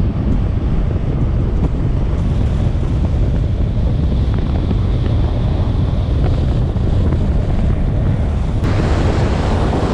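Wind buffeting the microphone during a fast downhill longboard run, a steady low rush. About a second before the end, a brighter hiss joins in.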